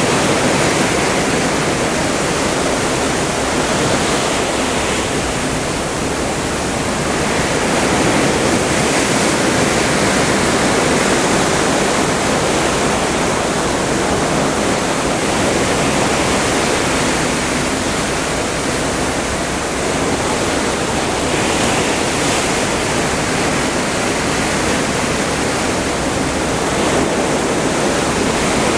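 Open-ocean water rushing and breaking along the side of a cruise ship under way. It makes a loud, steady wash that swells and eases gently every few seconds.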